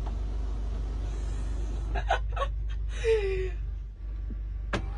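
Steady low hum, with a few sharp clicks about two seconds in and a short gasp-like voice sound falling in pitch about three seconds in.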